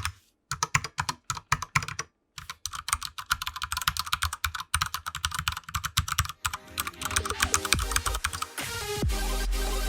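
Fast typing on a custom Ducky One 2 mechanical keyboard: a rapid stream of key clicks, stopping briefly twice in the first two seconds. Music comes in about six and a half seconds in and grows louder under the last keystrokes.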